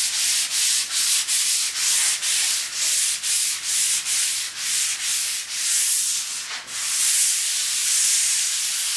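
Sandpaper on a hand sanding block rubbing over dried massa corrida (PVA wall putty) on a wall, in quick back-and-forth strokes about two to three a second that turn into a steadier, continuous rub about seven seconds in. This is the final smoothing of the putty before painting.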